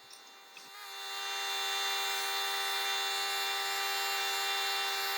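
Pneumatic air scribe with a stylus point running, a steady high buzz from its rapid blows that starts under a second in and swells to full strength.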